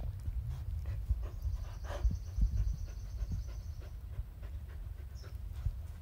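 A mother dog and her puppy play-fighting: panting, mouthing and scuffling, with many small knocks and clicks. A thin, high pulsing sound runs from about one to four seconds in, and a short high note follows near the end.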